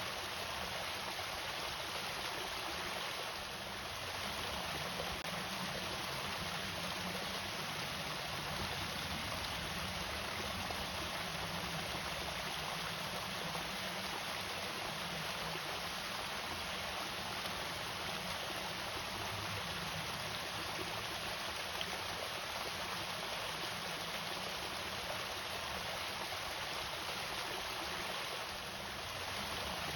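Water pouring steadily over a small irrigation waterfall, an even rushing wash with no break.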